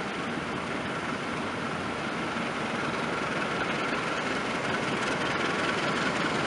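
Diesel locomotive hauling a passenger train on its approach, a steady engine drone and rail rumble that grows slowly louder.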